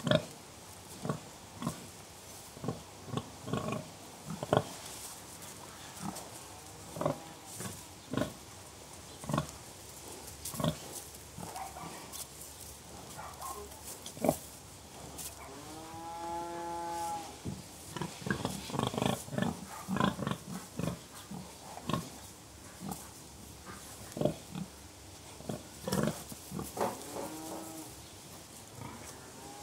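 Pigs grunting: many short grunts, coming thick and fast in the middle of the stretch. About halfway through there is one longer, drawn-out call, and another shorter one near the end.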